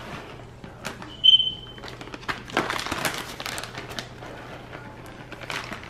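Plastic shredded-cheese bag crinkling and rustling in short scattered bursts as shredded cheese is shaken out and sprinkled over a foil pan of macaroni. A short, high, steady beep sounds about a second in.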